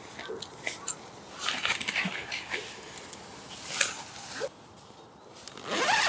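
Tent fabric and mesh rustling and being handled as the tent door is opened, with scattered clicks and scrapes; near the end comes a louder sweep that rises in pitch, like a tent zip being pulled.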